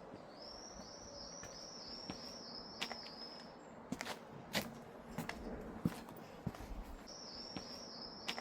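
A small bird singing a quick series of repeated high chirping notes, then again near the end, over a few footsteps.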